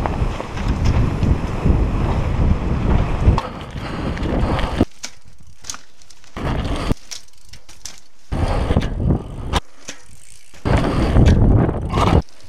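Mountain bike riding down a sandy dirt trail: knobby tyres rumbling over loose ground with wind on the camera microphone and sharp clicks and rattles from the bike. A steady stretch for about the first five seconds, then short bursts that start and stop abruptly with quieter gaps between.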